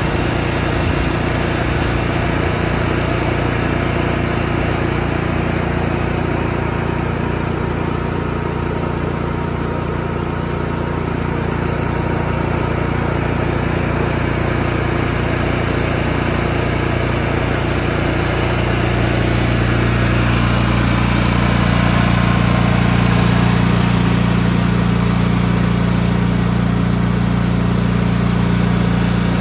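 Honda EB6000 portable generator engine running steadily, powering a misting fan. Its engine note shifts and grows slightly louder about two-thirds of the way in.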